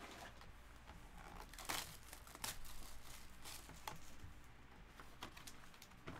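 Foil-wrapped trading card packs being handled and set down on a table: faint crinkling with a few light clicks and taps.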